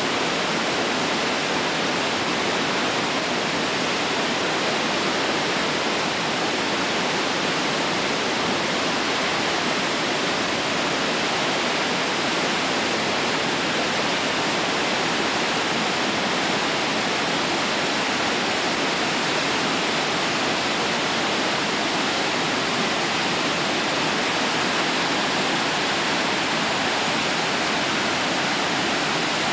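Whitewater rapids of the Uruguay River rushing through a narrow rock strait: a loud, steady, unbroken rush of water.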